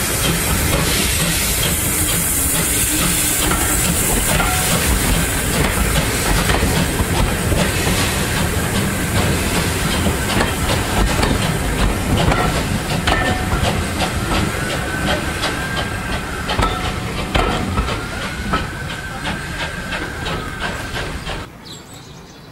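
Steam-hauled passenger coaches rolling past close by: a loud hiss of locomotive steam at first, then a steady clatter of wheels over rail joints, with drawn-out metallic wheel squeals in the second half. The sound cuts off suddenly shortly before the end.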